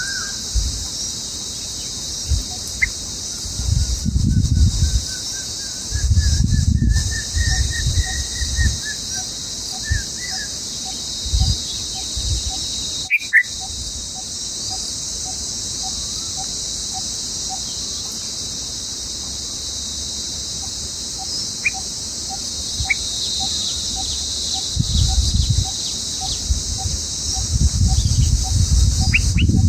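A steady, high-pitched outdoor insect chorus, with a faint regular ticking about twice a second and a few short bird chirps, plus a rising trilled call in the first third. Bursts of low wind rumble on the microphone come and go.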